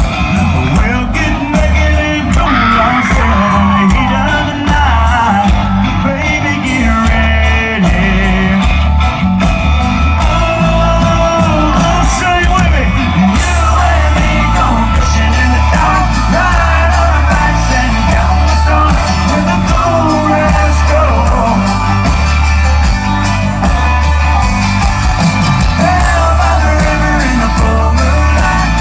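Loud music: a song with a singing voice over a steady, driving bass and drum beat.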